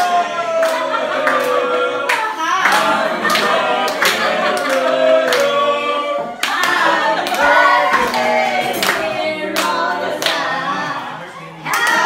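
A small group of people singing together while clapping along in time, the claps coming a little more than once a second.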